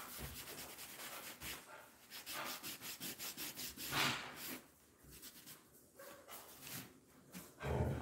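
Cloth rubbing quickly back and forth over a painted pine board, working in paste wax, with a louder scrape about four seconds in. The rubbing dies away in the second half.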